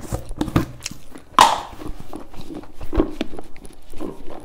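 Large plastic jar being opened and handled: the lid twisted off with knocks and clicks, and a sharp plastic crackle about a second and a half in.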